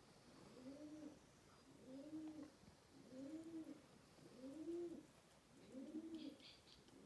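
A pigeon cooing: soft, low coos, each rising and falling in pitch, repeated steadily about once a second.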